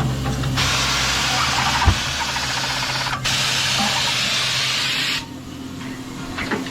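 Tire-changing machine at work on a wheel: a low motor hum, then a long hiss of compressed air from the machine's pneumatics, broken briefly once, with a single knock about two seconds in.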